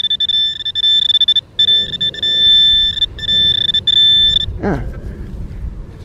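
Handheld metal-detecting pinpointer probe sounding a steady high-pitched buzzing tone, broken by a few short gaps and cutting off about four and a half seconds in: it is picking up a metal target in the soil of the hole.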